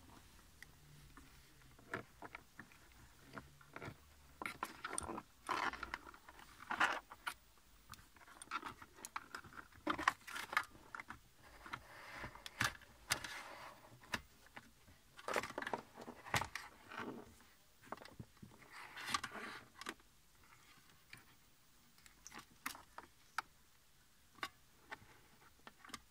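Plastic dashboard trim and loose wiring being handled while the centre-console storage box is worked out. The sound is irregular scraping, rattling and clicking, busiest in the middle and thinning out over the last few seconds.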